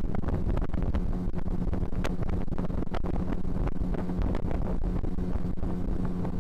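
Hidea HD 9.9 two-stroke outboard motor running steadily with the boat under way, with wind noise on the microphone and short sharp knocks throughout.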